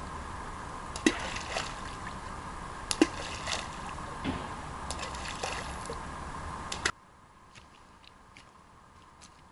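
Water sloshing at a riverbank, with a few sharp plops and splashes. About seven seconds in it cuts off abruptly, leaving a much quieter background with faint ticks.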